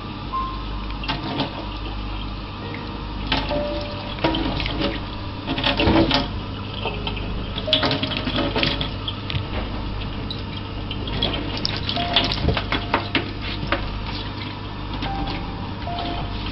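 Thin stream of tap water running into a stainless steel kitchen sink, with scattered sharp clicks and knocks, the loudest about six seconds in.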